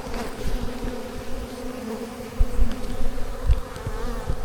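Honey bees buzzing in a steady hum, with several dull low thumps in between.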